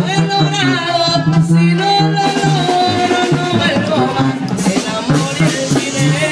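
Live Mexican regional band playing an instrumental passage, with drums and a steadily alternating bass line under wavering lead melody.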